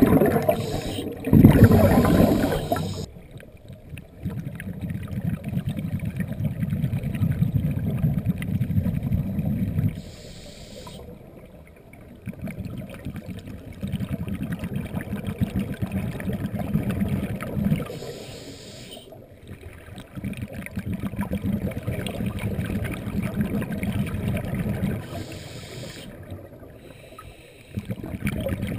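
Scuba diver breathing through a regulator, heard muffled through the camera's underwater housing. Long low bubbling exhalations lasting several seconds alternate with short quieter pauses, in a slow cycle about every eight seconds, after a louder burst of noise in the first few seconds.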